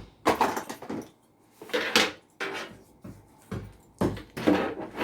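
Hard PC parts knocking and clinking in a handful of separate short clatters as a CPU cooler is handled and fitted onto the motherboard.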